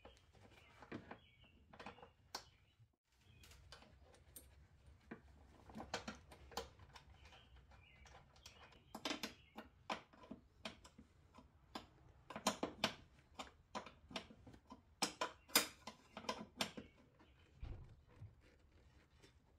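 Light metallic clicks and taps of a hand wrench working small bolts on a car's front strut, coming irregularly and bunched into quick clusters in the second half.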